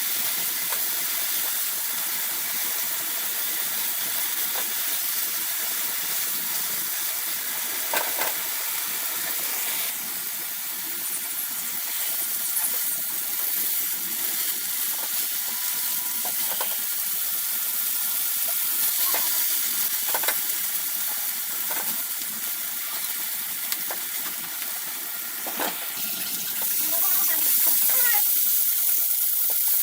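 Food frying in a pan: a steady sizzling hiss, with occasional light clicks and knocks, likely of a utensil against the pan, and the sizzle growing a little louder near the end.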